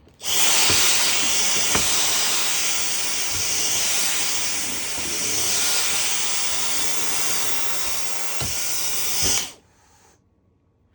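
Vacuum cleaner running with a steady high-pitched rushing hiss and a few soft knocks, then switching off about nine and a half seconds in.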